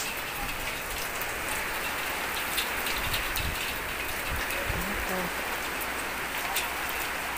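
Heavy rain falling steadily, blown onto a tiled balcony, with a few faint clicks.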